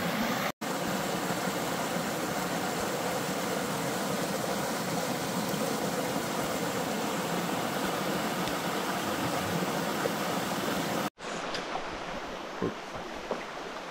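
Small mountain creek rushing, a steady close hiss of moving water. It cuts out sharply twice, and after the second break the water is softer, with a few light clicks.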